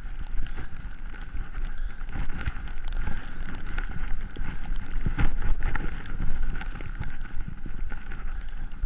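Skis running through deep powder snow: a steady rushing hiss with low wind rumble on the body-worn camera's microphone and scattered soft thumps, the strongest about five seconds in.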